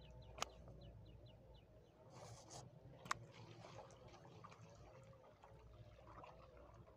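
Faint handling noises as fish are taken out of a beach net on wet sand: two sharp clicks, about half a second and three seconds in, and a brief rustle just after two seconds, over a low steady background.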